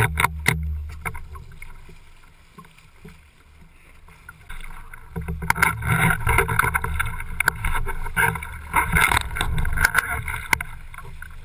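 Water rushing and splashing against a windsurf board as it picks up speed, with wind buffeting the microphone, a few knocks near the start and louder spray and rumble from about halfway in.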